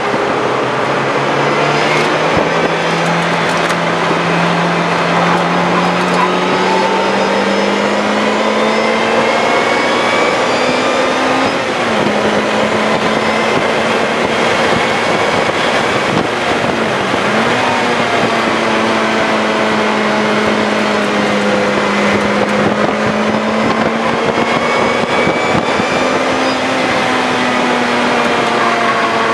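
2007 Lotus Exige S's supercharged four-cylinder engine heard from inside the cabin at speed on track. Its pitch climbs slowly through a long pull, dips briefly about twelve seconds in and again a few seconds later, then holds steady, over constant wind and road noise.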